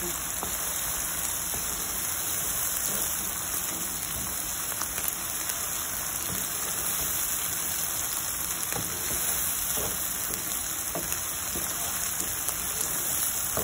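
Chopped onions and cumin seeds sizzling steadily in hot oil in a nonstick frying pan as they fry toward golden, with occasional soft scrapes and taps of a wooden spoon stirring them.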